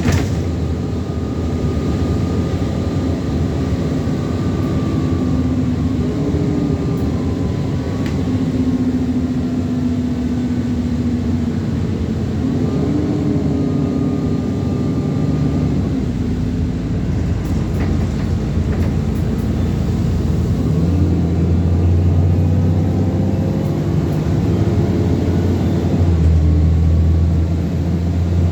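Alexander Dennis Enviro400 double-decker bus on a Trident chassis heard from on board, its diesel engine running under load, with the pitch stepping and gliding a few times as the bus pulls away and changes gear. A deeper, heavier engine drone comes in about two-thirds of the way through, with a faint high whine over it.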